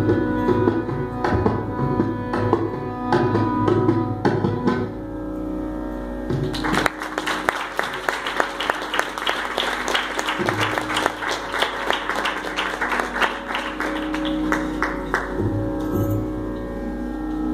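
Carnatic music with held melodic notes over mridangam. About seven seconds in, the mridangam breaks into a dense run of fast strokes that thins out near the end.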